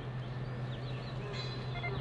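Small birds chirping and calling over a steady low hum, with a short run of held whistled notes in the second half.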